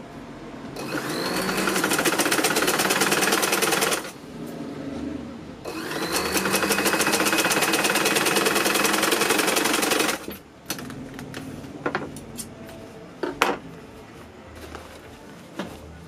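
Sewing machine stitching the shoulder seam of a jacket in two runs of about three and four seconds, each speeding up as it starts, with a short pause between. A few light clicks and knocks follow.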